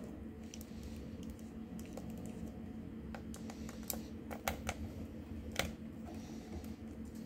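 Small precision screwdriver turning tiny screws in the metal chassis plate of a WLtoys 104001 RC car: a scatter of light clicks and ticks from the bit in the screw heads, with a few louder clicks in the second half.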